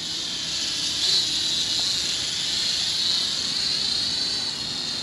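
ATTOP X-Pack 10 mini quadcopter flying, its tiny motors and propellers making a steady high whine that wavers slightly in pitch as the throttle changes.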